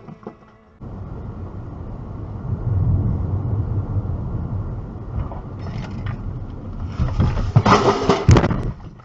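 Steady road and engine noise inside a moving car, recorded by a dashcam, starting about a second in. Near the end comes a loud burst of sudden noise as another vehicle cuts in right beside the car.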